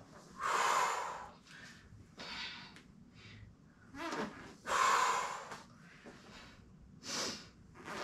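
A woman breathing hard from exertion while holding a side plank and rowing a resistance band: forceful, rushing breaths every second or two, the loudest about half a second in and about five seconds in.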